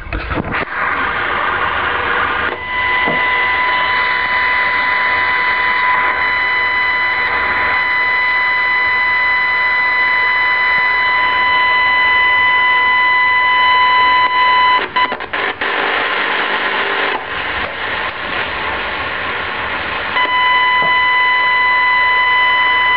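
Sangean ATS-909X radio receiving on the medium-wave band: hiss with a steady high-pitched whine and its overtones. The whine breaks off with a few short dropouts about fifteen seconds in and comes back near the end. It is interference generated inside the radio, which the owner suspects comes from the display circuitry.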